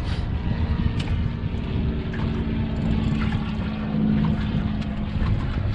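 Low, buffeting rumble of strong wind on the microphone, with a steady motor hum coming in about two seconds in and fading near the end.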